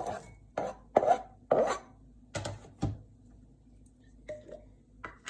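Chopped onion being added to the mix with a kitchen utensil: about five short scraping knocks in the first three seconds, then two faint ones near the end.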